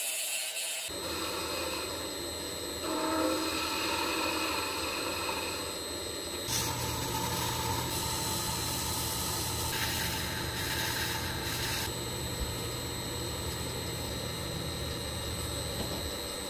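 Wood lathe running with a steady high whine and low hum, a tool working the spinning resin-impregnated maple blank. The lathe starts about a second in, and the cutting sound changes about six and a half seconds in.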